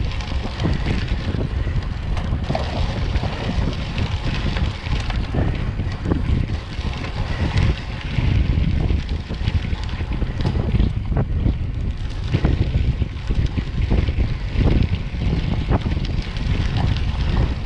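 Steady wind rush on the microphone from riding a bicycle at speed, with scattered crackle from tyres rolling over crushed gravel.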